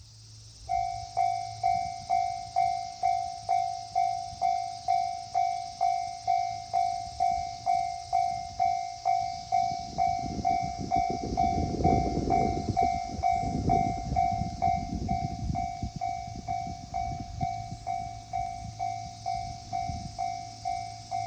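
Japanese level-crossing alarm bell starting just under a second in, ringing in even, fading strokes about twice a second. A train passes over the crossing, its rumble swelling around the middle and loudest near twelve seconds.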